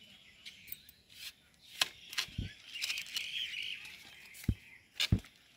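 Faint bird chirping in the background, broken by a few short soft knocks and rubbing sounds.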